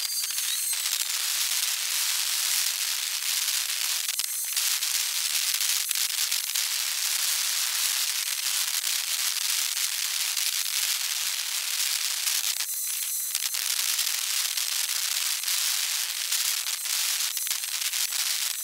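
Backyard ambient sound played back at many times normal speed: a dense, even crackling hiss with no low end.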